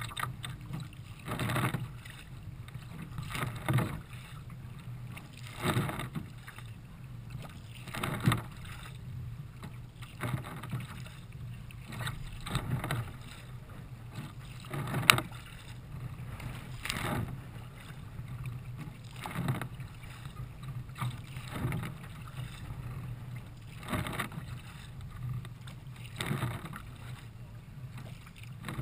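Kayak paddle strokes: the blades dip and splash in a regular rhythm, about once a second, over a steady low rush of water and wind.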